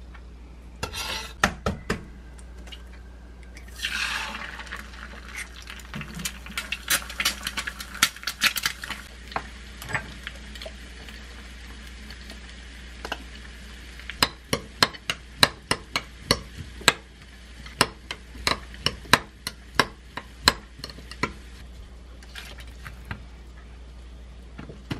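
Metal spoon stirring diced cucumber and onion with ketchup in a glass mug, clinking against the glass in runs of sharp ticks, about two or three a second in the second half. A few knocks near the start and a brief hiss about four seconds in.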